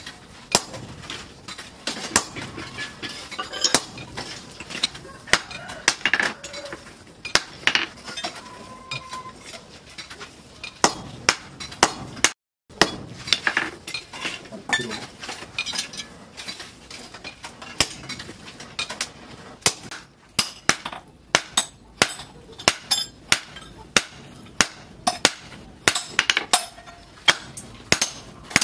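Hand hammer striking red-hot steel of an axe head on a steel post anvil: a run of sharp, ringing metal blows, roughly one to two a second, at an uneven pace.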